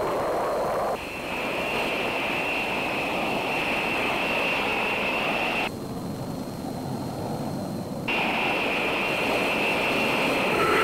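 Jet aircraft engine noise: a steady roar with a high whine over it. About two seconds into the second half the whine cuts out abruptly, leaving a duller rumble for a couple of seconds, then cuts back in.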